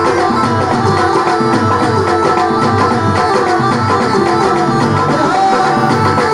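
Music with hand drums keeping a steady beat under a melodic instrumental line.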